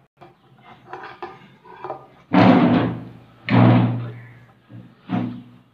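Three loud bumps with scraping, about a second apart, as a plate is moved and lifted on the table, with a few fainter knocks before them.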